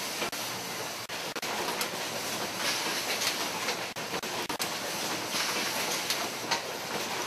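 Syringe production-line machinery running: a steady mechanical clatter with many small clicks, and brief hisses that come and go.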